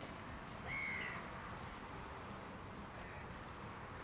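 Outdoor ambience of insects calling steadily in high, even tones, with one short high note about a second in.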